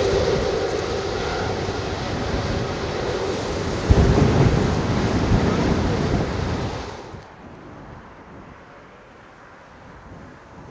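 Rolls-Royce Trent 700 turbofan engines of an Airbus Beluga XL taxiing past at low thrust: a steady jet whine over a broad rush, with a sudden low rumble about four seconds in. About seven seconds in the sound drops abruptly to a quieter, distant engine hum.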